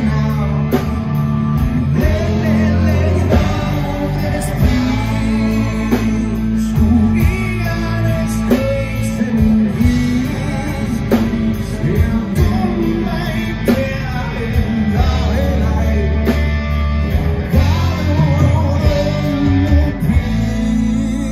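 Live rock band playing loud: electric guitar, bass guitar and a drum kit, with a steady beat of drum strokes.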